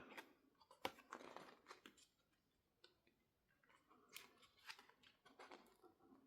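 Faint rustling of paper and light clicks as an album's printed inclusions, such as a lyric book, are handled and leafed through, in short bouts with pauses between.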